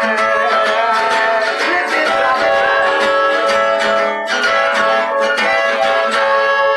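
Blues harmonica playing long held notes over an acoustic guitar, in an instrumental passage of a slow blues arrangement with no vocals.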